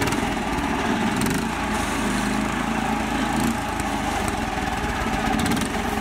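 Mini tractor's small engine running steadily with a fast, even pulsing as the tractor drives over rough, muddy ground.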